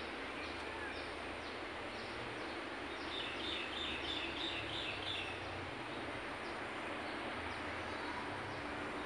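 Aviary ambience: a steady background hiss with a small bird's short, high chirp repeating at a regular pace, and a burst of quick high chirping from about three to five seconds in.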